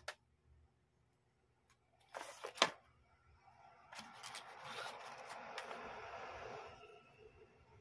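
Cardboard tablet packaging being handled: a click, two sharp scrapes about two seconds in, then a few seconds of rustling and sliding cardboard with small clicks as a flap of the accessory tray is lifted.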